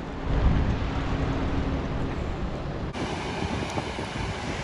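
A Skoda sedan's engine running with a low rumble and a steady hum as the car drives slowly over a rough gravel track. About three seconds in, this gives way to the steady rush of a fast, muddy river.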